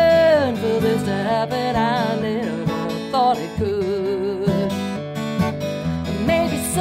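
Background music: an acoustic guitar song, strummed, with a voice singing long, wavering notes.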